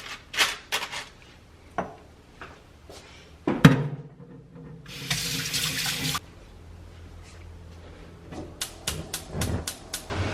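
Tap water running into a sink for just over a second, among sharp clicks and one louder knock of things being handled.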